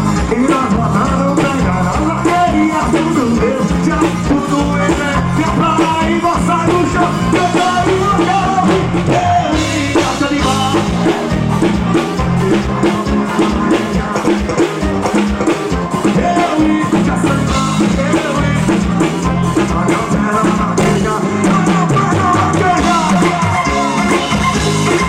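Live forró music: a band playing a steady beat with a singer.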